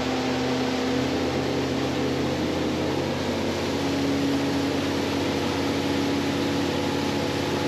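Outboard motor of a Surtees boat running steadily under way at cruising speed, with water rushing past the hull.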